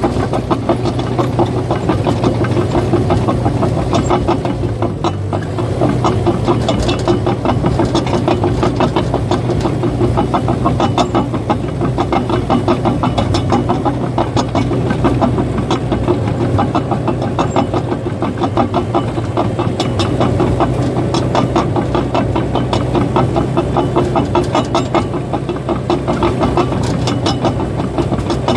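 Caterpillar bulldozer's diesel engine running steadily while its steel tracks clatter in a fast, even rhythm.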